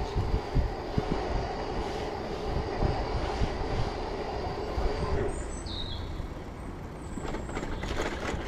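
Rolling noise of a BiciMAD electric rental bike ridden on a paved cycle path: a steady low rumble with wind buffeting and small knocks, and a thin steady whine through the first half. A short high chirp sounds about halfway. Near the end the bike rattles more as it rolls onto cobblestones.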